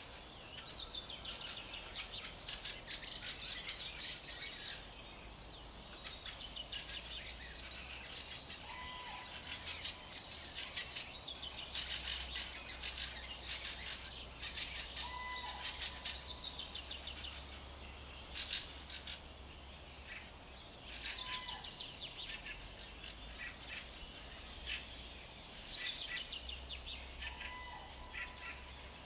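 A chorus of many small birds singing and chirping at once, a dense run of rapid high chirps, swelling louder twice in the first half. A short, lower, level whistled note recurs about every six seconds beneath it.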